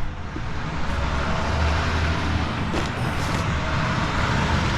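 Motor-vehicle traffic noise from the street: a steady engine rumble with tyre hiss, and a couple of faint clicks near the middle.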